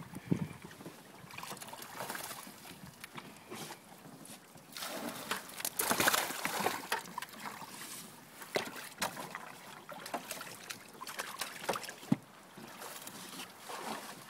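Water sloshing and splashing in a plastic cooler holding live bass, with irregular splashes and knocks, the loudest splashing about five to seven seconds in and a single sharp knock near the end.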